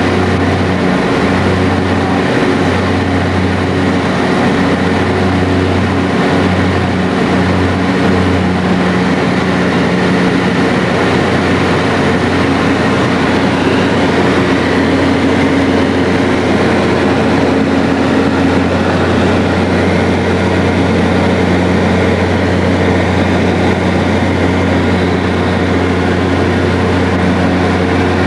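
Single-engine floatplane's engine and propeller running steadily during the climb, heard from inside the cabin. The lowest hum wavers for the first several seconds, then settles.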